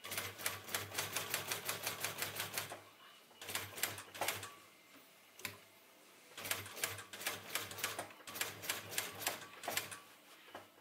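Industrial sewing machine stitching a leather panel onto canvas, its needle clacking at about six stitches a second over a low motor hum. It sews in three short runs, pausing briefly twice.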